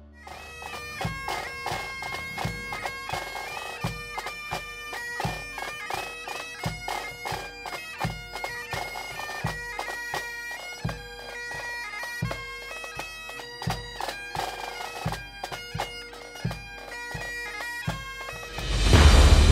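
Pipe band playing: Great Highland bagpipes sounding a steady drone under the chanter melody, with snare drum and bass drum beating steadily. Near the end, much louder theme music cuts in.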